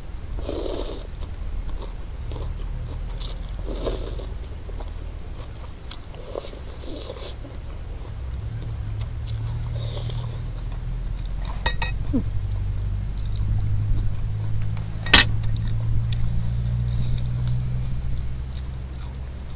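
A person eating beef noodle soup, chewing with soft mouth noises. Now and then come sharp clicks, the two loudest about twelve and fifteen seconds in.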